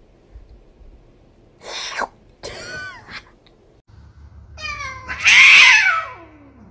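A domestic cat gives a short snort and then a brief chirping meow. About four and a half seconds in, a cat lets out a loud, long yowl with a hissing edge, its pitch sliding down as it ends.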